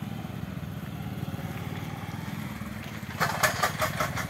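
Motorcycle engine running steadily at low speed while pulling a small two-wheeled crane trailer. About three seconds in comes a quick run of six or so sharp rattling knocks, lasting about a second.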